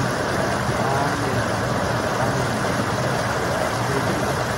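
Steady rush of a shallow mountain stream pouring over a low rocky cascade close by, an even unbroken splashing hiss.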